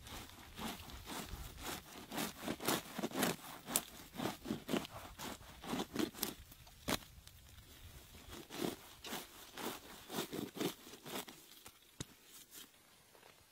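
A run of short scraping strokes, about two a second, on the skin of a whole Chinese pomfret as it is cleaned by hand, stopping shortly before the end.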